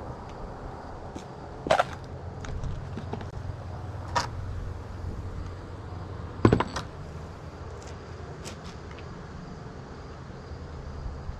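A low steady rumble with three sharp knocks, the loudest about six and a half seconds in.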